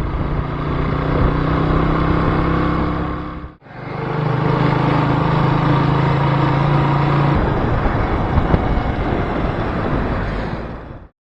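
Single-cylinder Suzuki GN125 motorcycle engine running at steady revs while riding, with a rushing wind-and-road noise. The sound dips out and fades back in about three and a half seconds in. Later the steady engine note gives way to the rushing noise alone before cutting off near the end.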